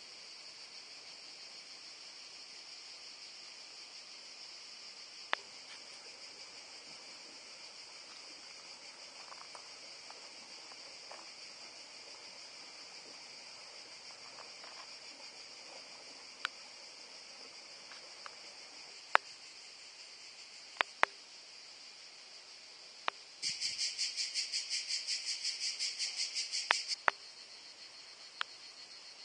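Cicadas buzzing steadily and high-pitched, with one closer cicada joining in a louder, rapidly pulsing call for about three and a half seconds near the end. Several sharp clicks stand out as the loudest sounds.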